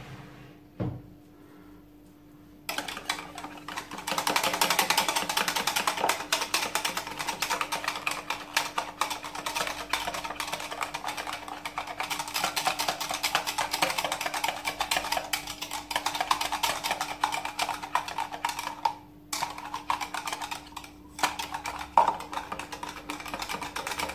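Wire balloon whisk beating a thin liquid sauce in a plastic measuring jug, its wires clicking and rattling rapidly against the jug's sides. It starts about three seconds in and runs on with two brief breaks near the end.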